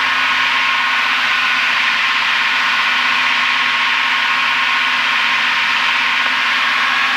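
Steady cabin drone of a Piper PA-32R's six-cylinder Lycoming engine and propeller in flight, a loud even hiss with a few faint steady tones in it and no change in power.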